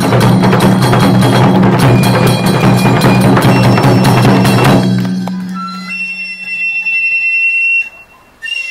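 Taiko drums and small brass hand cymbals played together in a fast, dense run of strokes that ends about five seconds in. Ringing metallic tones then hang on and are stopped short near the end, followed by one brief clash.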